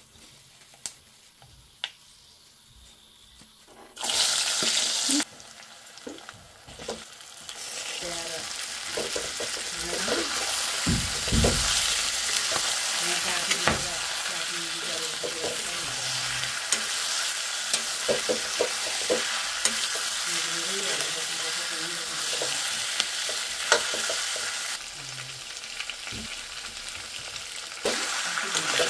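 Rooster meat frying in hot oil in a metal karahi, with a loud sudden sizzle about four seconds in as the pieces hit the oil, then a steady sizzle. A metal ladle stirs the meat, scraping and knocking against the pan throughout.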